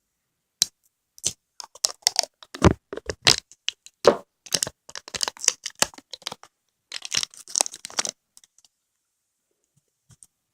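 Close-miked sharp clicks and crackles of peach konjac jelly ASMR, coming thick for about eight seconds and then stopping.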